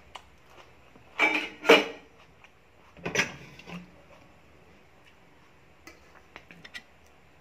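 Dishes and containers being handled on a table: two loud clatters a little over a second in, another around three seconds in, then a few light taps and clicks near the end.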